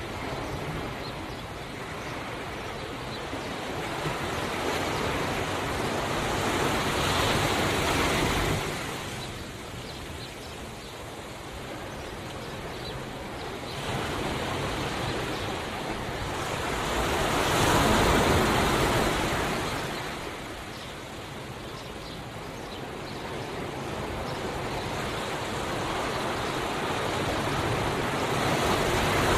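Ocean waves surging in and washing back on a shore, a steady rush of surf that swells and ebbs in slow waves, cresting about every ten seconds.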